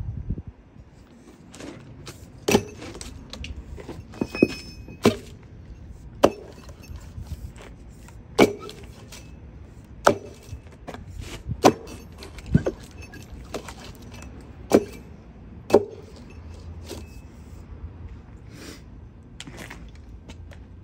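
A hickory round splitting open around a steel wedge: about a dozen sharp cracks at uneven intervals, one to two seconds apart, stopping a few seconds before the end.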